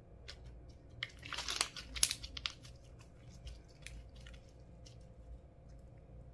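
Slime being worked by hand: a dense run of sticky crackles and pops about a second in, lasting about a second and a half, then scattered faint clicks.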